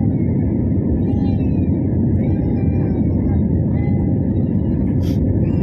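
Steady, loud cabin roar of a jet airliner in flight, from its engines and the air rushing past, heard from a window seat. Faint voices of other passengers sit underneath, and there is a brief click about five seconds in.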